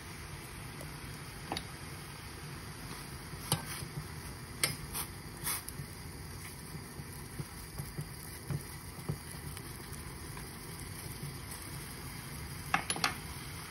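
Water boiling steadily in a stainless steel saucepan on a gas burner, a low rumbling hiss. A spoon clinks against the pan a few times about three and a half to five and a half seconds in, and there are a few more sharp clicks near the end.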